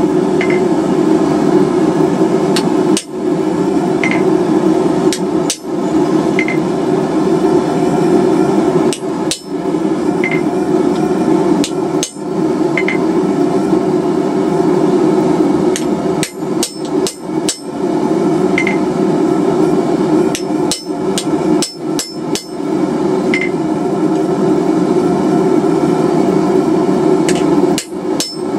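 Hammer blows on a chisel cutting scale marks into a hot steel bar, irregular strikes with a faint ring after some, over a steady low rushing noise.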